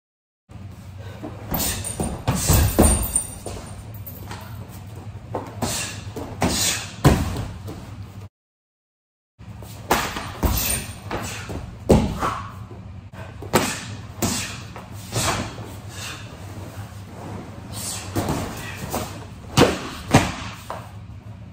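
Punches, kicks and palm strikes landing on padded heavy bags and a grappling dummy: a fast, irregular series of dull thuds and slaps in clusters. The sound cuts out completely twice, for about half a second and then about a second.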